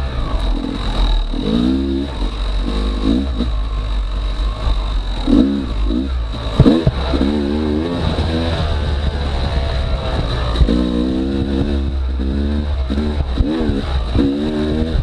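Yamaha YZ250X two-stroke dirt bike engine revving, its pitch rising and falling again and again with the throttle over a heavy low rumble.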